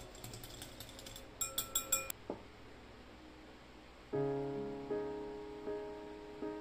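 A wire whisk clicking lightly against a glass bowl, then about four quick, sharp ringing clinks of the whisk on the glass about one and a half seconds in. Soft background music with piano-like notes comes in about four seconds in.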